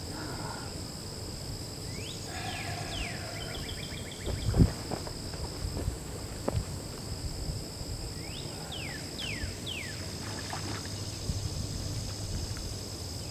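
A steady outdoor insect chorus, a continuous high buzzing, with a few short falling whistled calls. One sharp thump comes a little over four seconds in.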